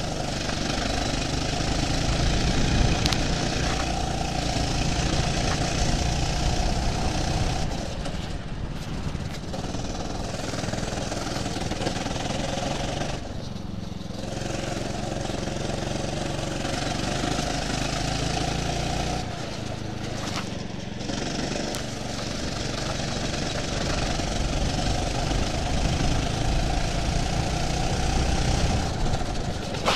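Go-kart engine running under load through a lap. Its pitch rises along the straights and drops briefly, about three times, as the driver lifts off for corners.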